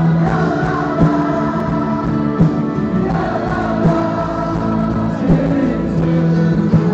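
Loud live music over a PA system with a group of voices singing, recorded from within the crowd.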